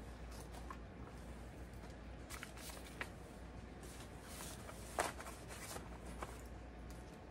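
Handling noises from a cross-stitch project and its frame: soft rustling with a few light clicks and taps, the sharpest about five seconds in, over a low steady hum.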